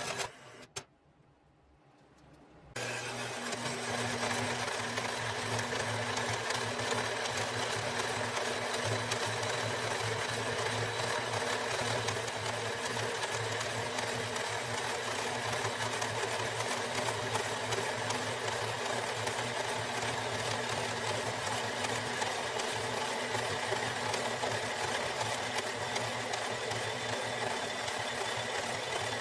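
Horizontal metal-cutting bandsaw running steadily, its blade cutting through 11-gauge steel plate: a constant motor hum under the hiss of the blade in the steel. After a near-silent gap at the start, the sound comes in about three seconds in.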